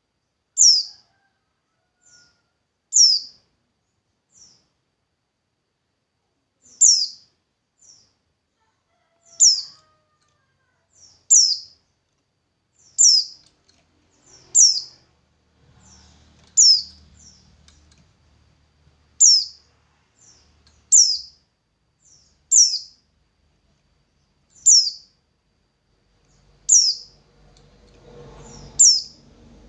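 A songbird repeating a short, high, downward-slurred chirp about every two seconds, each chirp led by a fainter soft note.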